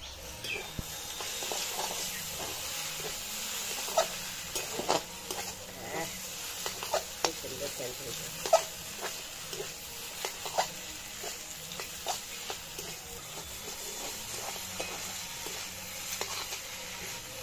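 Chow mein noodles sizzling in a hot wok, with a metal spatula scraping and knocking against the pan in irregular clinks as the noodles are stir-fried.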